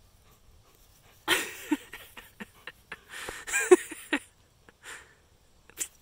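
A dog sniffing and snuffling hard at close range, in two loud bouts, about a second in and around three seconds in, with a few short sniffs between.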